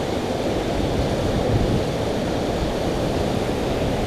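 Wind buffeting the camera microphone in an uneven low rumble, over a steady rush of creek water.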